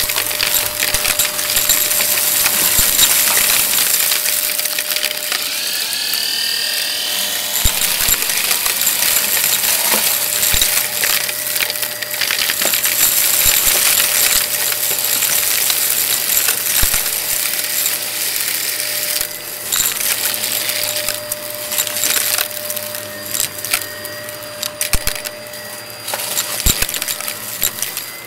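Shark Navigator upright vacuum running on a shaggy rug, its brushroll picking up small hard debris that crunches and rattles up through the nozzle in a stream of clicks over the steady motor. The clicking thins out toward the end.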